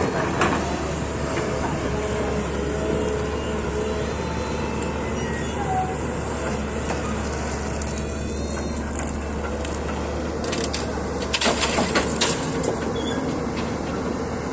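Excavator's diesel engine running steadily, with a quick cluster of knocks and clatter about eleven to twelve seconds in.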